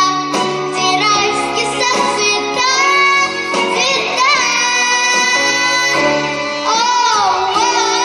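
A young girl singing a pop song over an instrumental backing track, with vibrato on her held notes.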